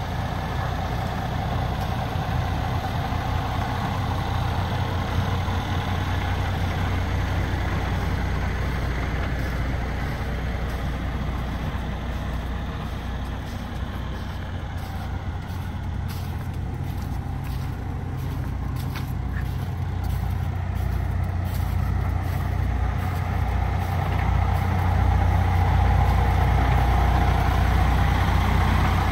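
Kenworth W990's Cummins X15 diesel engine idling steadily, with a low, even hum, growing louder near the end.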